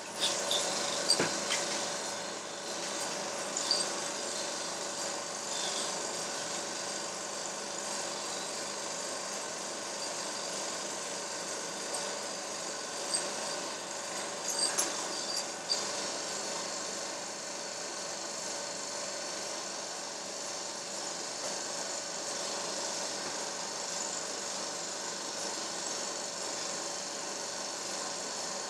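Steady mechanical whirring of a running motor, with a few sharp clicks and knocks near the start and again around the middle.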